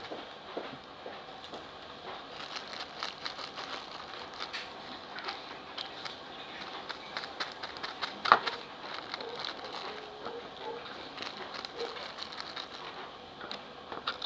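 Scattered light clicks and taps from handling the slime-making materials and containers, with one sharper click about eight seconds in.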